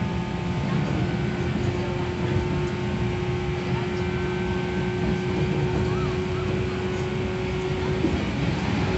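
JR West 117 series electric train running at speed, heard from inside the passenger car: a steady rumble of wheels and running gear with a steady motor hum that drops out about eight seconds in.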